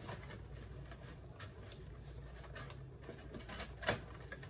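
Clear acetate plastic box crinkling and clicking as gloved hands fold its top closed: a few separate faint clicks, the sharpest one near the end.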